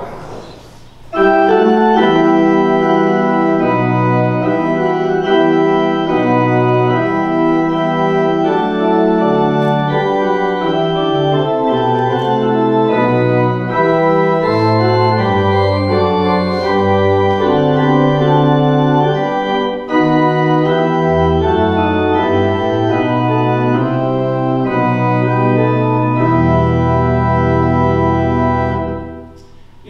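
Organ playing a slow passage of held chords that change every second or so, with deeper bass notes coming in during the second half. It starts about a second in and stops near the end.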